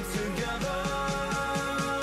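Background music: a pop-style track with a steady beat and a wavering melody line.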